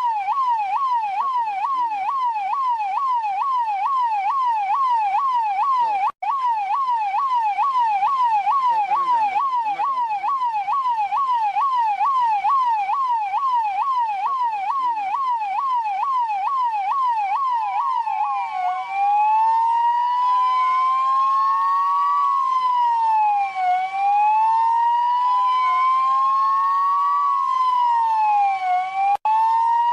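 Russian police car siren sounding a fast yelp, about three rising-and-falling sweeps a second. Partway through it switches to a slower wail, two tones rising and falling over each other every couple of seconds. The sound cuts out for an instant twice.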